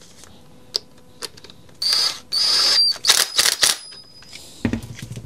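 Cordless Makita impact driver run in a few short bursts, hammering with a high whine as it tightens the new drive gear onto the electric chainsaw motor's armature shaft, with a low thud near the end.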